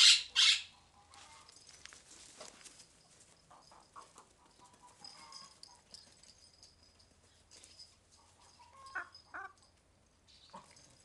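Backyard hens calling: two loud squawks right at the start, scattered faint clucks, and a pair of clucks about nine seconds in.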